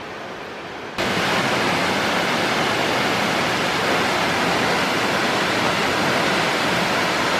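A waterfall's rushing water, loud and steady, cutting in suddenly about a second in after a quieter, even hiss.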